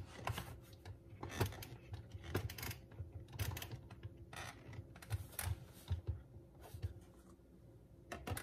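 Irregular light plastic clicks and taps as the clear plastic bean hopper and lid of a Bodum Bistro electric burr grinder are handled and fitted onto the grinder.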